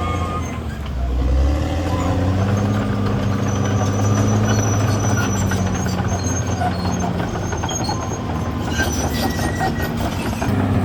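Caterpillar D6R XL bulldozer working, its diesel engine running with a steady note under the noise of the tracks and earthmoving, with faint high squeaks now and then.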